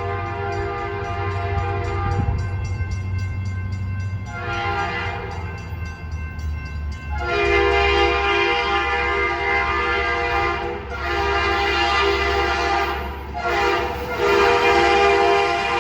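BNSF 2376's Leslie RS3K three-chime locomotive horn, a 'mutt' with one non-original bell, sounding its chord in a series of long blasts broken by short gaps. The blasts are louder from about halfway through. The low rumble of the train runs underneath.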